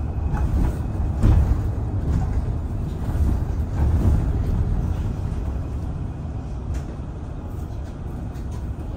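City bus in motion heard from inside the cabin: a steady low rumble of engine and road noise, swelling louder about a second in and again around four seconds.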